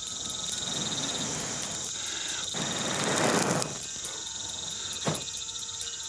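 A man blowing hard onto a smouldering chunk of termite nest to fan its embers into smoke, one long rushing puff of breath about two and a half seconds in. Behind it, insects trill steadily.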